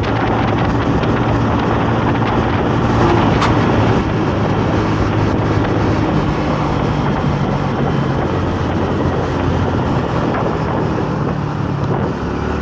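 Honda Navi 110's small single-cylinder four-stroke engine running steadily at cruising speed, with wind rushing over the microphone.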